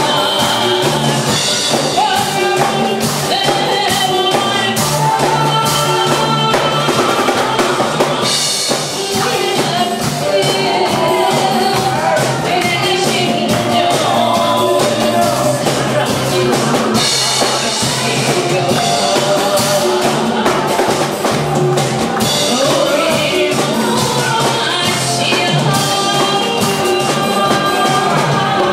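A woman singing a Korean trot song into a microphone over loud amplified accompaniment with a drum kit.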